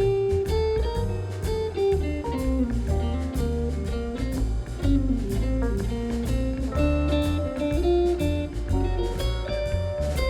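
Instrumental music: a guitar melody over a bass line with a steady beat.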